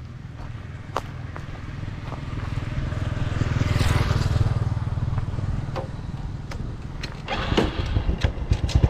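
A motor vehicle engine running, growing louder up to about four seconds in and then easing off, with a quick series of clicks and knocks near the end.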